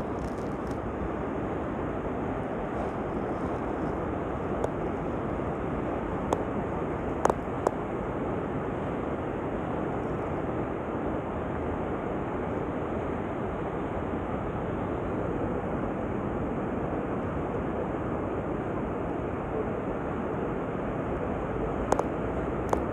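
Steady rushing of wind and sea surf, with a few short sharp clicks.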